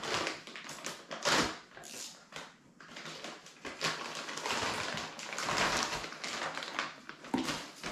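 Clear plastic packaging bag crinkling and rustling as it is worked open and a part is pulled out of it. The crackling comes in irregular spurts, loudest about a second in and again around five to six seconds in.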